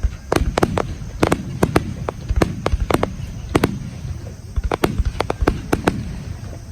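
Aerial fireworks bursting in quick succession: many sharp, irregular cracks and bangs over a continuous low rumble.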